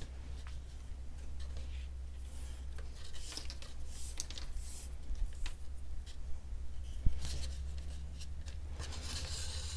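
Soft scratching and rubbing as leather lace and a metal awl are worked against a gourd's rim, with a few light clicks and one sharper tick about seven seconds in, over a steady low hum.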